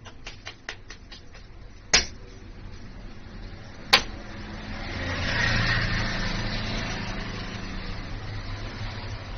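A run of light regular clicks, two sharp knocks about two seconds apart, then a motor vehicle approaching and running past, growing louder about halfway through.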